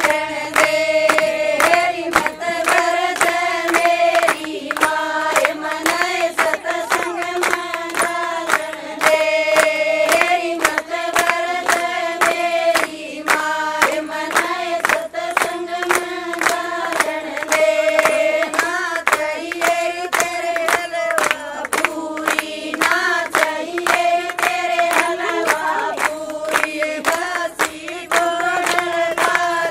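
Women singing a Haryanvi folk song together, the melody held in long sung lines, with steady hand-clapping on the beat keeping time.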